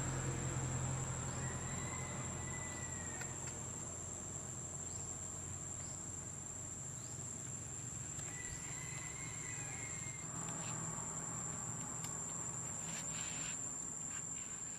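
Insects droning steadily at one high pitch, with a couple of faint short chirps in the background.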